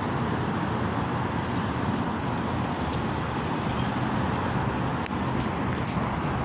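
Steady road traffic noise, cars going by.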